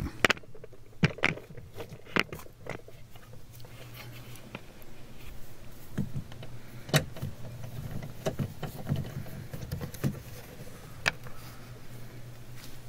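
A 7 mm socket wrench being worked on door-panel screws: scattered, irregular clicks and light taps of the tool over a low steady hum.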